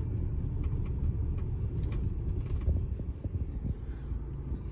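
Low, steady rumble of a Jaguar car's engine and tyres heard inside the cabin while it drives slowly, with a few faint small clicks.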